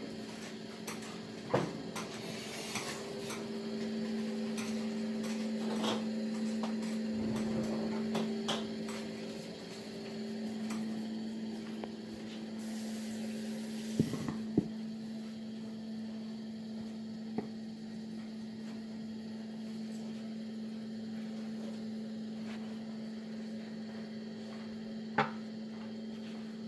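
A cooking pot and its lid knocking a few times as they are handled with oven mitts, the loudest a quick double clank about halfway through and another near the end. A steady low electrical hum runs underneath, with a brief hiss just before the double clank.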